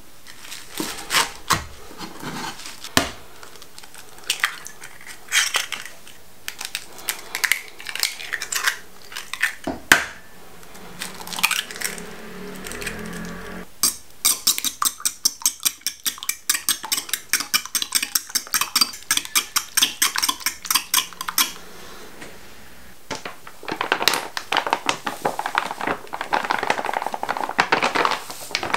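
A knife chopping chives on a wooden cutting board in irregular strokes, then a fork beating eggs in a ceramic bowl with quick, even clinks, about five a second, for several seconds. More rapid clinking comes near the end.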